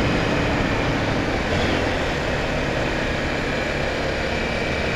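Honda XR 250 Tornado's single-cylinder engine running steadily while the motorcycle is ridden along the road.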